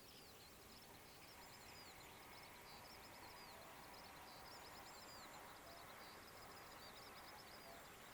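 A songbird singing faintly: quick, high chirping notes strung into phrases that repeat without a break, over a low, even background hush.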